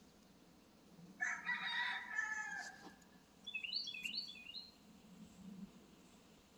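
A rooster crows once, a single drawn-out call of nearly two seconds, followed shortly after by a few quick high songbird chirps.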